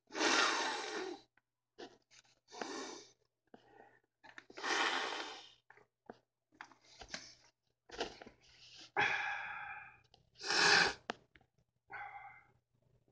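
A man sniffing hard and breathing heavily through his nose, about six loud rushes of breath with short pauses between, one or two with a strained hum in them, as ground pepper burns inside his nostrils.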